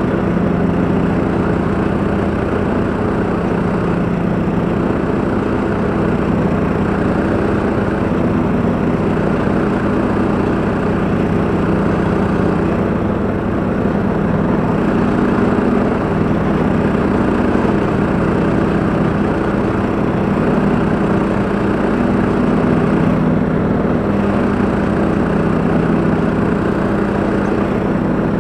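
Husqvarna LTH 174 lawn tractor and a towed ATV flail mower running steadily while cutting grass: a continuous engine drone that holds an even speed throughout.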